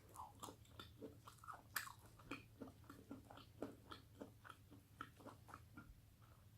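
Faint chewing of a mouthful of food, with soft mouth clicks and smacks several times a second.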